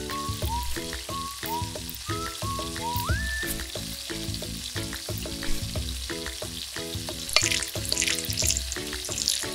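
Oil sizzling steadily as baby octopus and vegetables fry in a tiny pan, with the sizzle flaring louder about seven seconds in. Light background music with a repeating plucked melody plays along.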